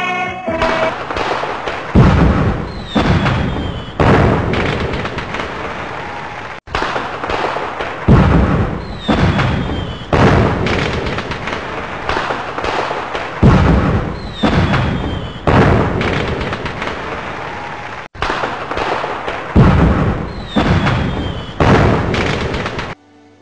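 Fireworks going off: a rapid string of loud bangs, each trailing off in crackle, with a falling whistle heard four times. The sound cuts off suddenly shortly before the end.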